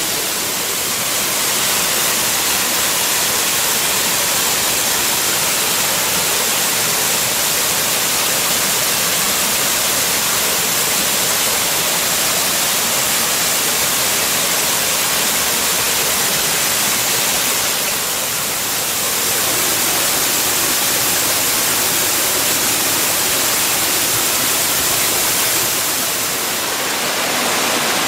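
Waterfall: a loud, steady rush of falling water, dipping slightly in level a few times.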